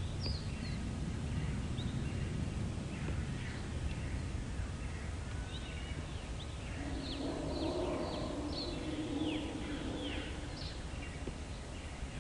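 Small birds chirping, many short high calls, most sliding quickly downward, over a steady low outdoor rumble. A lower murmur swells for a few seconds in the middle.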